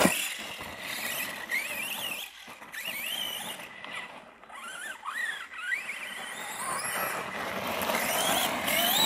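Arrma Kraton 4S RC truck's brushless electric motor whining, its pitch sweeping up and down in short bursts as the throttle is worked, over the hiss of tyres on gravel. There is a sharp knock at the very start, and near the end the whine climbs steadily as the truck accelerates.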